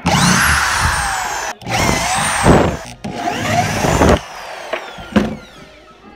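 Power drill with a long extension bit running in three bursts of about a second each, its motor whine falling in pitch as it winds down after each, then two brief blips of the trigger near the end.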